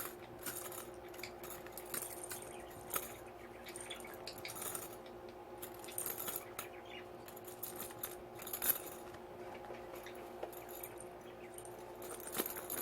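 Guinea pigs moving about their cage: irregular light clicks and metallic clinks, with a few sharper ones about 3 s in, near 9 s and near the end, over a steady low hum.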